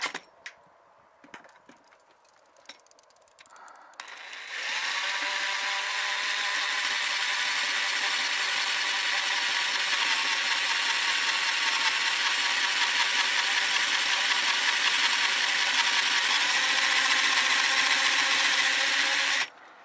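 A few light clicks, then a cordless drill runs steadily under load, boring into a ribbed steel roof panel for about fifteen seconds before stopping suddenly near the end.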